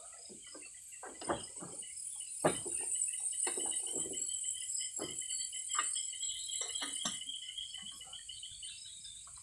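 Irregular knocks and rattles of bowls and cooking things being handled on a wooden table, about one a second, with one louder knock about two and a half seconds in. Insects chirp steadily and high-pitched behind them.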